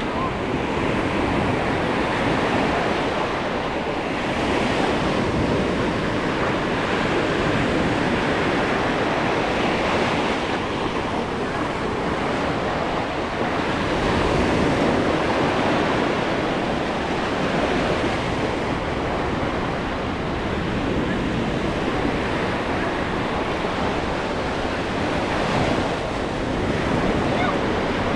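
Small waves washing onto a sandy beach in a steady rush that swells and eases every few seconds, with some wind on the microphone.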